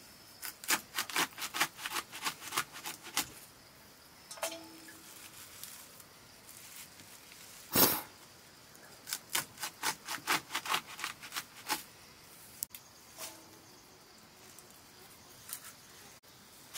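Leafy greens being sliced against a sickle blade: two quick runs of crisp cutting strokes, about four a second, with one louder knock about eight seconds in and a few scattered strokes later.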